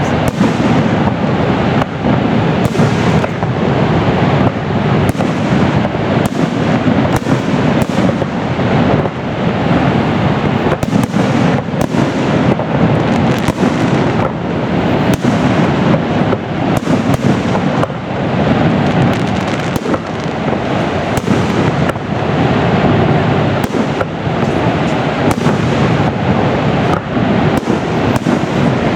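Fireworks going off in a dense, unbroken barrage, with many overlapping bangs and crackles every second.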